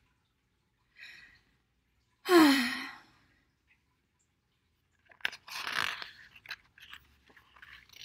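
A person's short vocal sound, falling in pitch, then the paper rustle and clicks of a hardcover picture book's page being turned.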